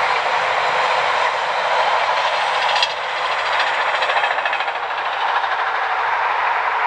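Container wagons of an intermodal freight train rolling past on the rails: a steady rushing wheel-and-rail noise, with a run of faint regular wheel clicks about three to four seconds in as the tail of the train goes by.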